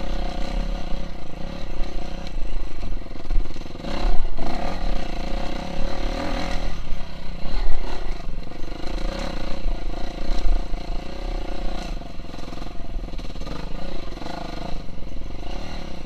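KTM 350 SX-F dirt bike's single-cylinder four-stroke engine running under changing throttle, its revs and loudness rising and falling repeatedly.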